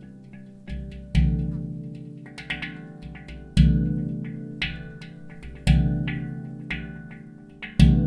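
Ayasa C Aegean handpan played by hand: quick light finger taps on the upper notes between four deep low notes struck about every two seconds, each ringing out and slowly fading. The last deep note, near the end, is left to ring.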